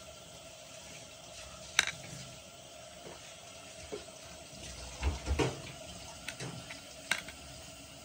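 A spoon clicking and scraping as hollowed zucchini is stuffed with a rice-and-herb dolma filling: one sharp click about two seconds in, a few soft thumps around the middle, and lighter clicks later, over a steady background hiss.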